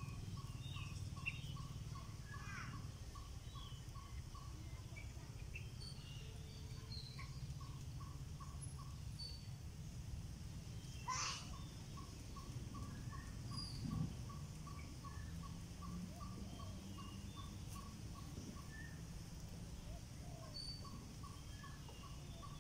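Wild birds calling: a steady run of short mid-pitched notes about four to five a second, broken off now and then, with scattered brief chirps and one quick rising whistle about eleven seconds in. A low steady hum lies underneath.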